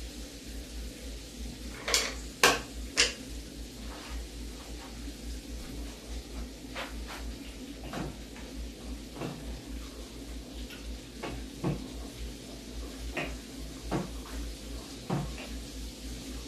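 Cookware clatter from a pot of sweet potatoes being checked: three sharp metal clanks about two seconds in, then scattered lighter knocks and taps, over a steady low hum.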